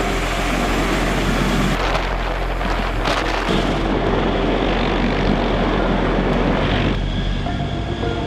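Heavy-lift military helicopter running: a loud, steady drone of turbine engines and rotor with a deep hum underneath. The sound changes abruptly a few times.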